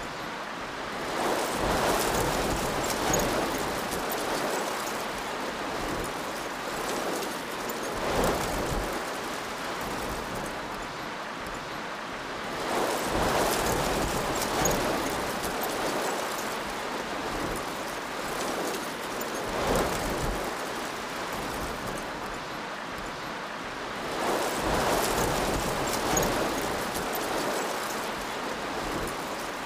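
Hurricane wind and heavy rain: a steady rushing roar of wind-driven rain that swells into louder gusts every six seconds or so.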